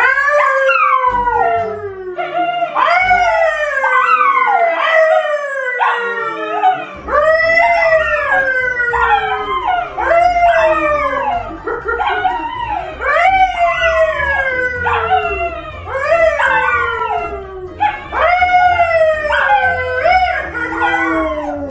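A man and a poodle howling together: a long run of howls, each jumping up and then sliding down in pitch, one about every second, the two voices often overlapping.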